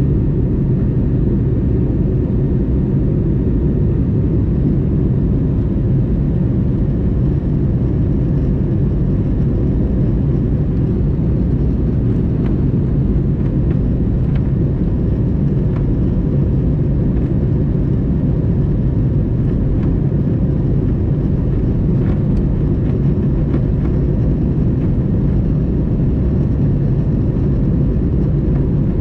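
Steady low drone inside the cabin of an Airbus A321neo in flight: engine and airflow noise, with a few faint clicks.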